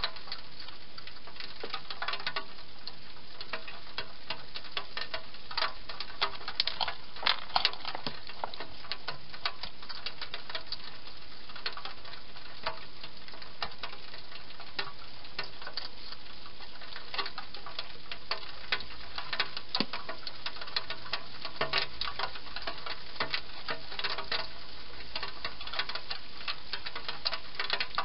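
European hedgehog eating from a dish: many irregular crunching and smacking clicks, coming in busier spells, over a steady hiss.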